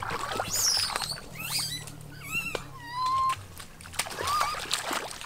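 Many short, high chirping and whistling animal calls, some rising and falling, with a fast warbling trill about halfway through, over light splashing of feet wading in shallow water.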